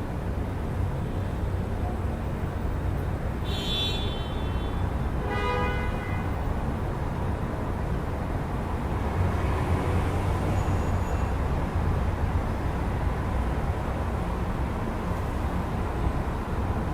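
Steady night-time city traffic rumble. Two short horn toots sound about three and a half and five and a half seconds in.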